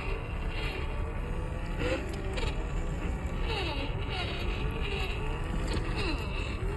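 Electric motor and gears of a WPL Toyota FJ40 RC crawler whining as it crawls over dirt and twigs, the pitch rising and falling with the throttle, over a steady low rumble.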